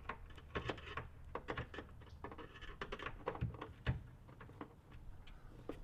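Hand screwdriver and metal cabinet hinges on a flat-pack wardrobe door being fitted and adjusted: a quick, irregular run of light clicks and ticks.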